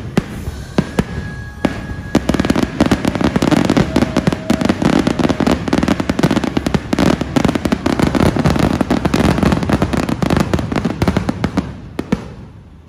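Aerial fireworks bursting in a rapid barrage of bangs and crackles. About two seconds in, the reports become a dense, almost continuous volley, then they thin out near the end.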